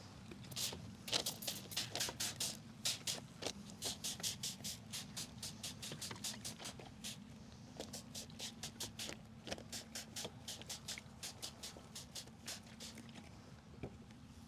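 Newspaper crackling in a fast run of short dry crinkles as it is pressed and smoothed over the top of a beehive's frames, over the steady low hum of the honeybees.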